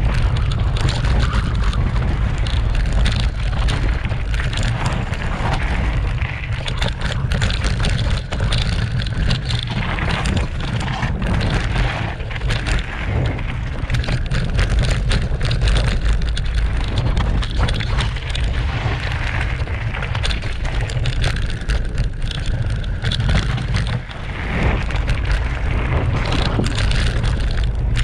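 Mountain bike ridden fast downhill over gravel and bare rock, heard from a handlebar-mounted action camera: steady wind rumble on the microphone, tyres crunching over stones, and the bike rattling with frequent sharp knocks. The noise dips briefly a little before the end.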